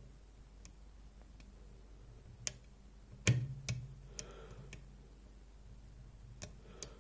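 Scattered sharp clicks of a metal lockpick working inside a DOM iX6SR dimple lock, probing for the rear interactive element; a few louder clicks come a little past the middle, the rest faint.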